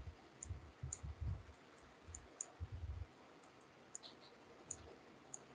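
Faint computer mouse clicks, several of them spaced irregularly, with soft low thumps during the first three seconds.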